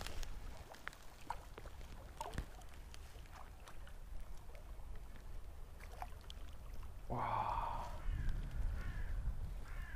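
Low wind rumble on the microphone with scattered small clicks and rustles while a landing net holding a grayling is lifted from the stream. About seven seconds in comes a harsh, drawn-out cry, followed by a few fainter ones.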